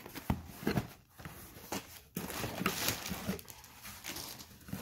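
Cardboard shipping box being opened by hand: flaps bending and scraping, with plastic packaging rustling, in a string of irregular knocks and rustles.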